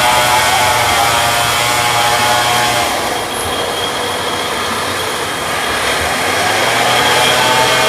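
Diesel engine of a loaded logging truck running hard under load, with a steady high whine over it.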